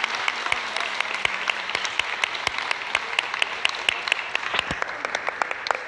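Audience applauding: a dense patter of hand claps that thins out toward the end.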